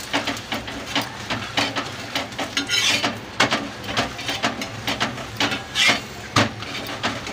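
Flat metal spatula pressing, scraping and tapping a methi paratha on a tawa as it fries in oil, then flipping it: an irregular run of knocks and scrapes, with a couple of short hisses about three and six seconds in.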